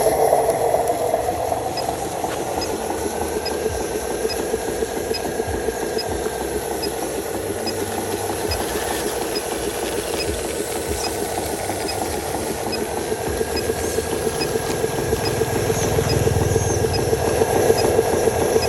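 Radio-controlled model logging truck's small electric motor and gearbox running steadily with a dense buzz and a faint high whine.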